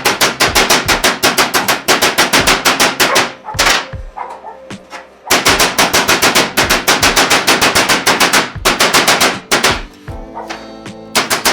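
Background music with a fast, even percussive beat of about seven hits a second over held chords. The beat drops out twice, once for about two seconds and once for about a second.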